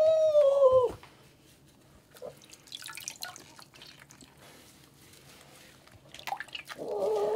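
A cat meows loudly: one long rising-then-falling call that ends just under a second in. Then soft dripping and trickling of bath water, and near the end a second, wavering, drawn-out meow.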